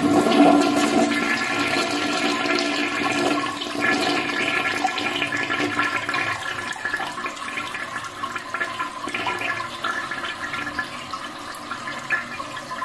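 Toilet flushing: a rush of water from the cistern into the bowl, loudest at the start and slowly fading as it drains away.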